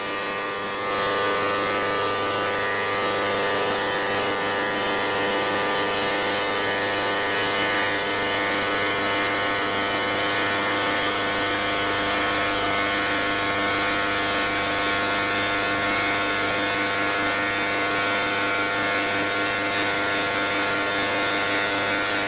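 CNC quartz stone router running steadily: a continuous machine hum and whine made of many steady tones over a hiss, with a faint high whistle that stops about a second in.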